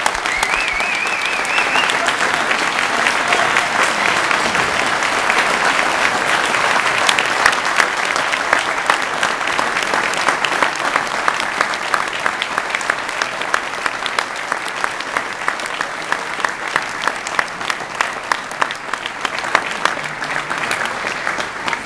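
Audience applauding, a long round of clapping that gradually thins out, with single claps standing out more clearly toward the end.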